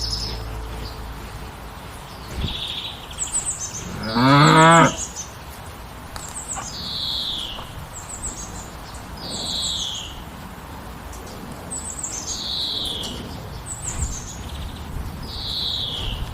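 A cow moos once, briefly, just over four seconds in. Throughout, a bird repeats a short high call of falling notes about every two and a half seconds.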